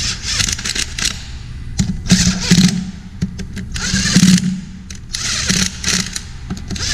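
Cordless power tool spinning nuts down onto the studs of a crankshaft front seal flange, in four short bursts of motor whir and rattle about a second apart, snugging each nut.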